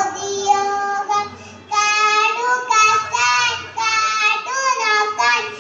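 A young child singing solo into a microphone: sustained, wavering notes in phrases, with a short pause for breath about a second in.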